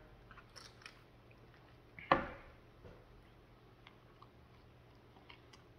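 Quiet sounds of a person eating and drinking: faint small mouth clicks, with one short louder noise about two seconds in.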